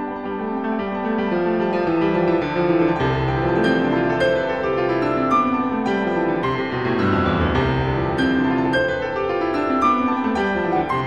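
Background piano music: a steady flow of gently played notes, some running in rising and falling runs.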